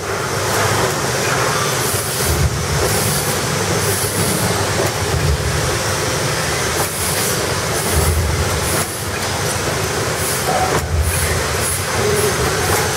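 Hang-ear drip coffee bag packing machine running: a loud continuous mechanical clatter with repeated knocks.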